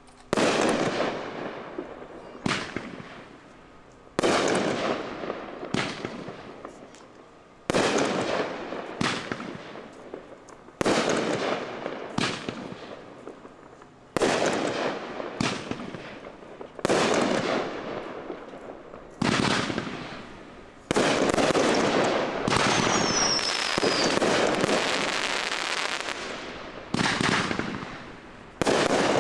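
Consumer aerial fireworks bursting one after another, a sharp report about every one and a half to two seconds, each fading away afterward. From about two-thirds of the way in, the bursts run together almost without a break for several seconds.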